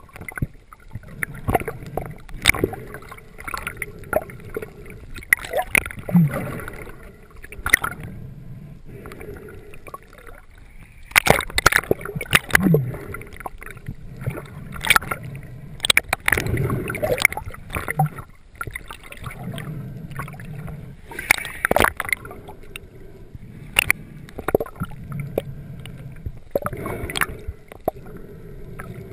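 Water sloshing, gurgling and splashing close around the camera, with irregular sharp knocks and clicks, busiest about eleven seconds in and again from about sixteen to twenty-two seconds.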